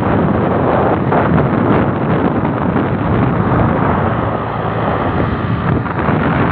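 Loud, steady wind rush over the microphone of a phone carried on a moving motorcycle, mixed with the road and engine noise of the motorcycles.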